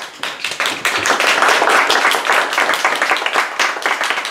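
Audience applauding, many hands clapping in a dense patter that swells during the first second and begins to thin out near the end.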